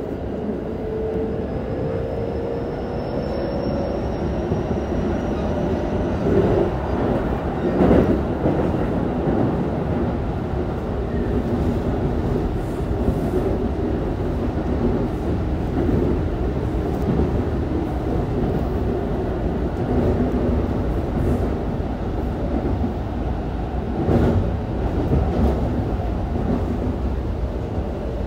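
Keikyu 1000 series electric train with Toshiba IGBT-VVVF inverters running along the line, heard from inside the car: a steady rumble of wheels on rail with a few rail-joint knocks. A faint rising whine from the traction motors fades out in the first few seconds as the train gathers speed.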